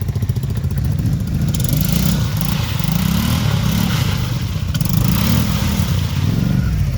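Off-road vehicle engine revving up and down repeatedly as it tries to power out of a mud hole where it is stuck.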